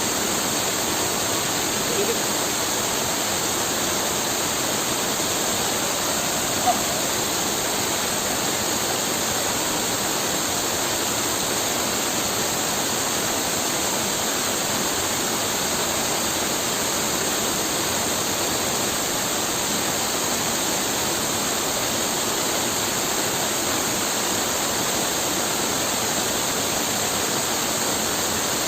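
Steady rushing of a waterfall, an unbroken wash of falling water. A brief sharper sound stands out about seven seconds in.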